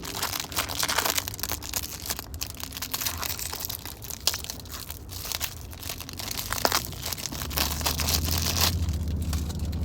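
Plastic packaging crinkling and rustling as a squishy toy is unwrapped and handled, in irregular crackly bursts. A low hum comes in during the last couple of seconds.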